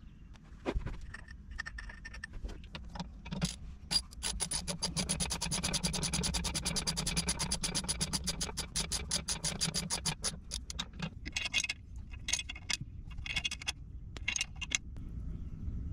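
Hand ratchet wrench clicking fast and evenly, several clicks a second, for about seven seconds from about four seconds in, as bolts on a marine engine's exhaust elbow are tightened down. Loose metal tool clicks and scrapes come before and after.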